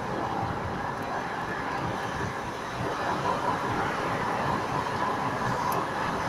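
A car's road and engine noise heard from inside the cabin while driving: a steady rumble and tyre hiss, a little louder from about halfway through.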